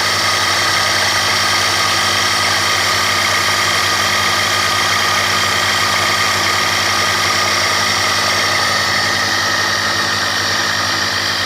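Electric motor of a workshop machine tool running at a constant speed: a loud, unchanging hum with a higher whine over it, with no change in load.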